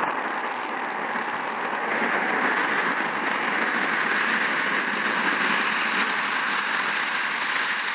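Jet engine noise from a Boeing 777 freighter's GE90 turbofans as it comes in to land: a steady rushing sound that grows brighter as the aircraft draws nearer.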